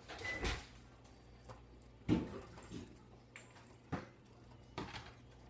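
A dish being fetched from a microwave and handled in a kitchen: a brief high tone and a rustle at the start, then scattered knocks and clunks, the loudest about two seconds in.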